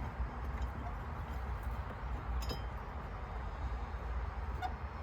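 A few faint metallic clinks from handling the battery hold-down bracket and its hardware, about two and a half seconds in and again near the end, over a steady low rumble.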